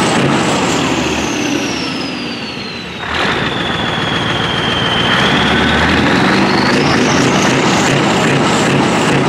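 Scania 143 450's V8 running through an open-pipe exhaust, with a high whine. The whine falls as the revs drop off. The engine is revved sharply about three seconds in, and the whine dips and then climbs again.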